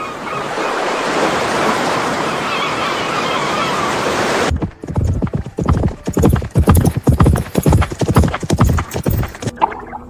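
AI-generated (MMAudio) sound effects. A steady rushing noise plays for about four and a half seconds, then cuts to the rapid, uneven hoofbeats of a galloping horse, which stop shortly before the end.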